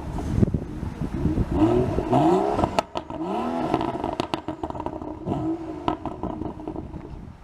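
BMW M135i's turbocharged inline-six with an aftermarket exhaust, revved up and back down several times in quick sweeps. Sharp pops and crackles from the exhaust come between the revs as the throttle closes.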